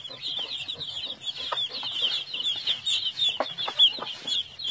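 A brood of chicks peeping loudly and continuously, a dense stream of short high chirps, with a few short lower clucks mixed in. The chicks are excited while feeding on black soldier fly larvae.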